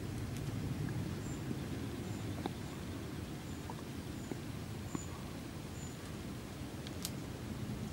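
Faint ticks and crinkles from a plastic snack wrapper as a field mouse noses inside it, with one sharper tick near the end, over a steady low outdoor rumble. A string of short, high peeps repeats about once a second through the middle.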